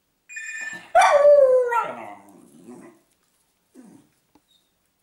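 A telephone rings briefly, a short steady electronic trill. About a second in, a small dog answers it with one long howl that starts high, slides down in pitch and trails off over about two seconds.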